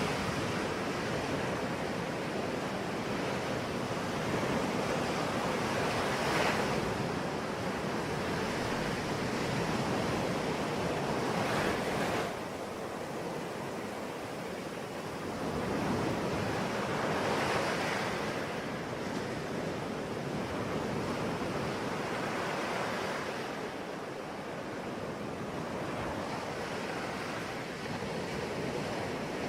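Ocean waves breaking and washing on a shore, a steady rushing surf that swells louder every few seconds as each wave comes in.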